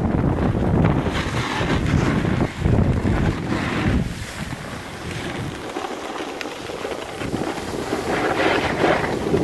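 Wind buffeting the microphone of a camera carried by a moving skier, over the hiss of skis sliding on groomed snow. The rumble eases for a couple of seconds past the middle and builds again near the end.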